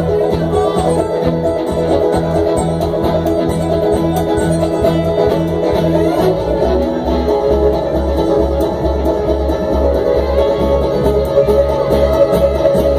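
A bluegrass string band playing live, instrumental with no singing: acoustic guitar and fiddle over an upright bass pulsing steadily on the beat.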